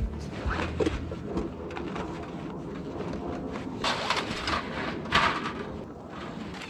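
Rustling and scraping of a folding titanium wood stove kit being unpacked: its carry bag handled and thin metal panels slid out and set down, with two louder scrapes about four and five seconds in.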